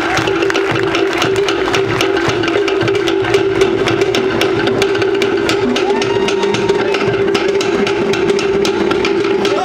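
Live Polynesian percussion playing a fast, continuous rhythm of sharp wooden strokes over drums, many strokes a second at an even level.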